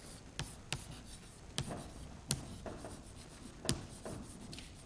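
Chalk writing on a blackboard: several sharp taps as the chalk strikes the board, with scratchy strokes in between.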